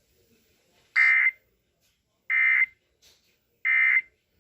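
Emergency Alert System (SAME) digital data tones: three short, identical, warbling bursts of a third of a second each, about 1.3 s apart. This is the end-of-message code that closes a weather warning.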